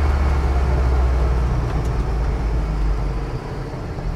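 A Hillman Imp's rear-mounted 1.9-litre Volvo 16-valve turbo four-cylinder engine running on the move with a steady low drone. It eases off about three seconds in as the car slows.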